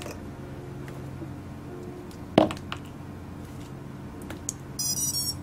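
A sharp click about two and a half seconds in. Near the end, high-pitched electronic start-up beeps begin, played through the motors of an Eachine Tyro79 FPV quadcopter by its ESCs as the LiPo battery is plugged in and the drone powers up.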